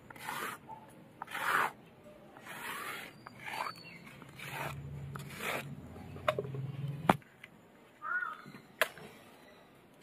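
A stone roller rubbed back and forth on a stone grinding slab (sil-nora), grinding mustard seeds and green chillies into a wet paste, in rhythmic strokes about once a second. It is followed by scraping of the paste off the slab and a few sharp taps, the loudest about seven seconds in.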